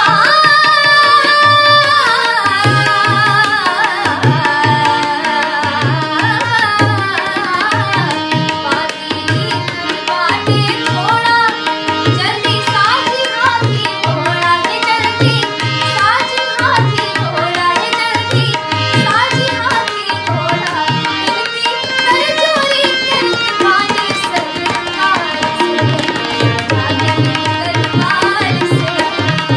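A young woman singing a melodic Indian song with gliding, ornamented notes, over a steady rhythm of low hand-drum strokes.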